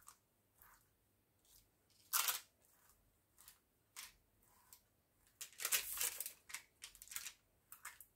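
A spoon scraping and smoothing a thin layer of seedy crispbread dough over baking paper on a baking tray: irregular short rasping strokes, the loudest about two seconds in and a quick run of them a little past the middle.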